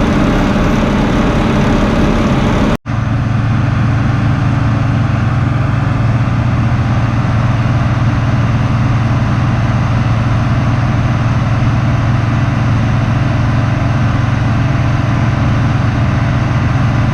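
Heavy farm machinery engine running steadily under load during the silage harvest. The sound breaks off for an instant about three seconds in, then goes on as a steadier, deeper hum.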